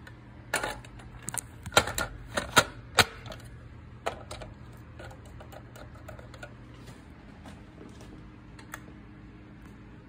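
An irregular run of sharp clicks and knocks over a few seconds, from handling or tapping, then only a steady low hum. The alarm is not sounding.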